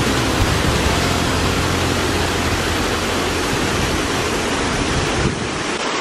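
Waterfall pouring into a plunge pool: a steady, loud rush of falling water, a little quieter and thinner after about five seconds in.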